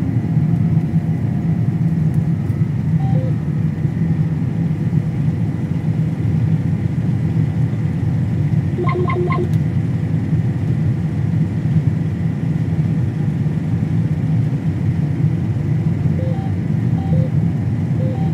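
Combine harvester running at work, a steady low drone of engine and threshing heard from the cab. About halfway through, three quick beeps sound from the cab's monitor or alarm.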